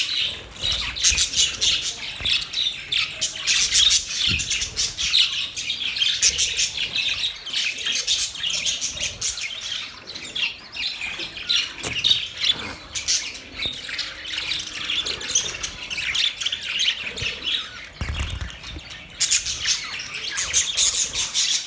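A flock of budgerigars chattering with a constant mix of rapid chirps, warbles and harsh squawks.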